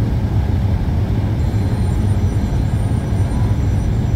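Steady low rumble of a jet airliner's cabin as the plane taxis on the runway.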